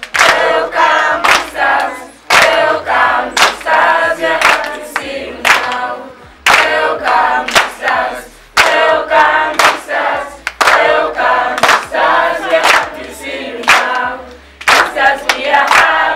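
A group of children singing together in a chorus, clapping their hands in time with the song, phrase after phrase with short breaks between.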